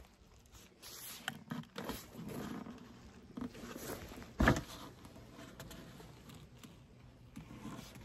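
Handling noises as the metal-clad roof of a wooden horizontal beehive is taken off: scattered clicks, scrapes and rustles, with one loud knock about four and a half seconds in.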